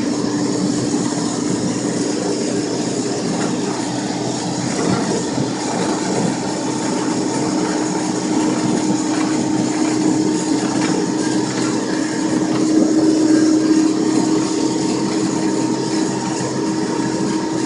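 Cat backhoe loader running steadily as it drives along the road, its engine noise carrying a steady whine that holds one pitch.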